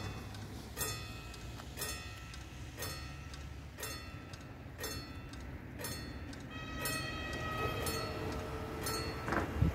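Railway level-crossing warning bell striking about once a second with a ringing tone. In the second half a train approaches and grows louder, adding steady tones underneath, and there is a short heavy knock near the end.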